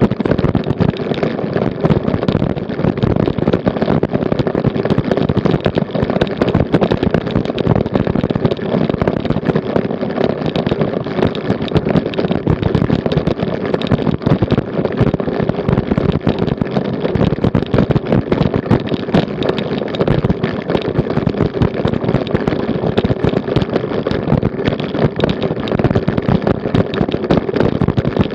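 Bicycle riding over cobblestones, heard through a bike-mounted action camera: a loud, continuous rattle and clatter of rapid jolts as the bike and camera mount shake over the stones.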